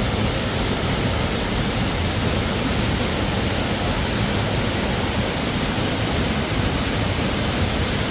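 Waterfall, its falling water making a steady, even rushing noise.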